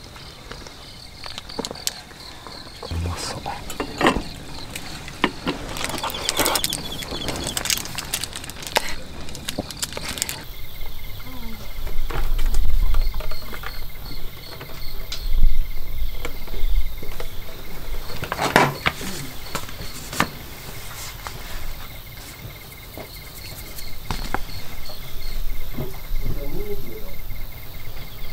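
Night insects chirping steadily in high, pulsing trills. Over the first ten seconds they are joined by metallic clinks and scrapes of spoons on stainless plates, then by a few scattered knocks.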